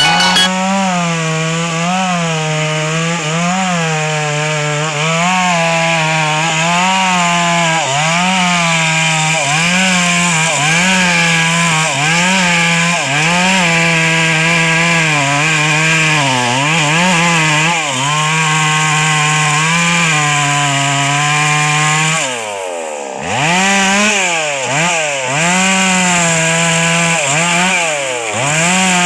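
Chainsaw with a 22-inch bar running at high revs while cutting wood, its engine note dipping under load and recovering about once a second. About two-thirds of the way through it eases off and the pitch falls briefly before it revs up and cuts again.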